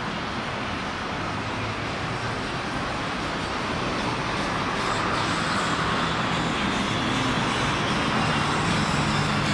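City street traffic: road vehicles running steadily. The sound grows louder through the second half as a low engine hum comes closer.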